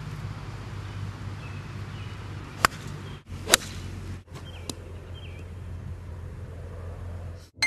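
Golf iron swung at a ball and striking it off the hosel in a shank: sharp clicks about two and a half seconds in and again a second later, the second one louder.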